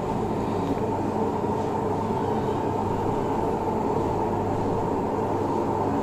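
Samsung Digital Inverter front-load washing machine running with its drum spinning: a very loud, steady rumble and hum that the repairer likens to a helicopter. It is the abnormal vibration noise he is diagnosing, with the belt and pulley found to be fine.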